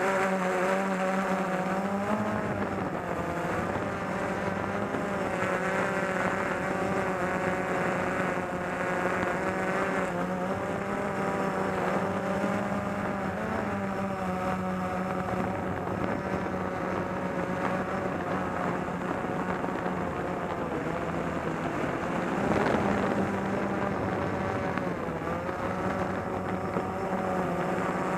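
Drone motors and propellers whining steadily at close range, the pitch wavering slightly as the craft manoeuvres, with a brief louder swell of noise about two-thirds of the way through.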